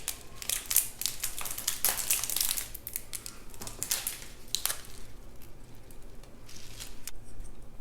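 Small plastic clicks and crinkling as beads and their packaging are handled and pressed into slime, thick at first and thinning out over the last few seconds.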